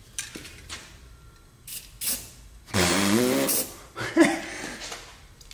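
Aerosol spray-paint can sprayed in several short hissing bursts, the longest in the middle. A short wordless vocal sound overlaps it, and a brief loud sound comes just after four seconds.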